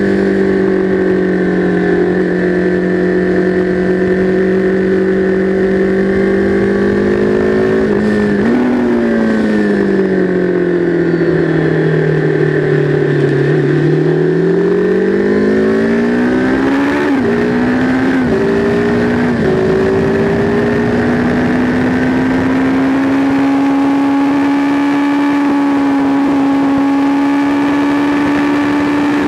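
Sport motorcycle engine under track riding: it holds steady revs, drops a gear about a quarter of the way in, and its revs sink while slowing for a corner. It then climbs again through three quick upshifts, each a brief dip in pitch, and holds steady at higher revs in fifth gear near the end.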